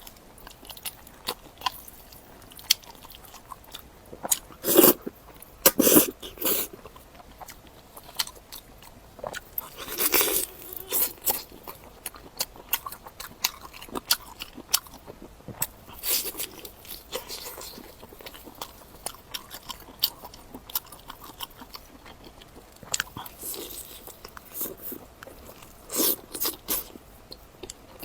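Close-miked eating: steady small mouth clicks and chewing, with several louder crunchy bites spread through.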